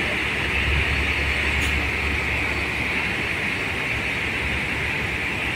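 Truck running: a steady low engine rumble under a constant hiss, the rumble easing about two and a half seconds in.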